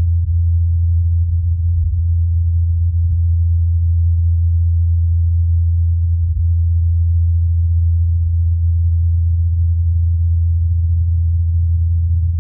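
Low, steady hum of the Ingenuity Mars helicopter's spinning rotors, holding one pitch with no change.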